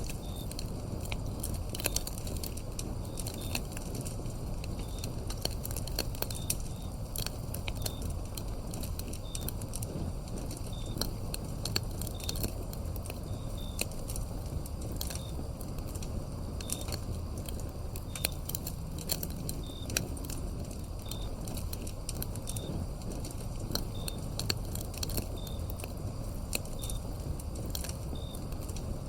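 Wood fire crackling with sharp pops over a low steady rumble, while a cricket chirps in short, regular pulses about every second and a half.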